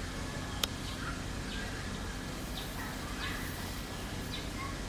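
Scattered short bird chirps over steady outdoor background noise, with one sharp click about half a second in.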